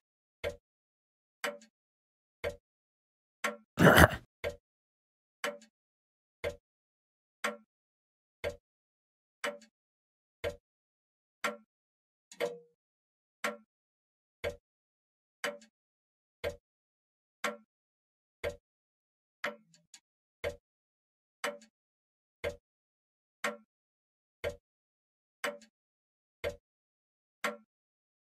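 Pendulum clock ticking steadily, about once a second. One much louder sudden hit cuts in about four seconds in.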